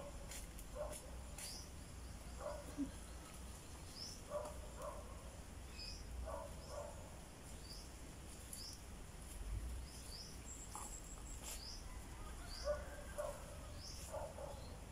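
Birds calling outdoors: short high chirps repeated about once a second, mixed with lower short calls in twos and threes.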